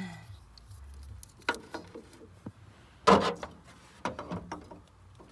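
Food packages and containers being handled and moved about: scattered short knocks and rustles, the loudest about three seconds in.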